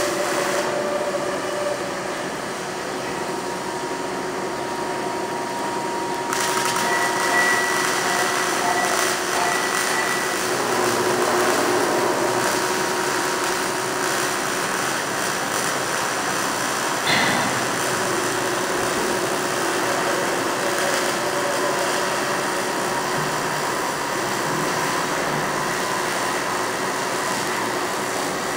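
Stick (SMAW) welding arc with a 6011 electrode, crackling and hissing steadily. The hiss brightens about six seconds in, and there is one sharp crack near the middle.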